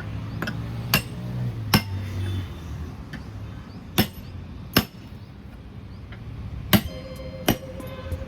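Heavy hammer blows on a truck wheel and tyre as the tyre is worked off or onto its rim. About six sharp strikes fall roughly in pairs.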